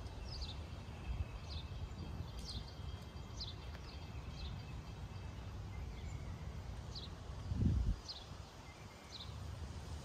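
A bird calls repeatedly in short, high chirps that slide downward, roughly one a second with a short pause midway. Under it runs a steady low rumble of wind, with a louder swell about three-quarters of the way in.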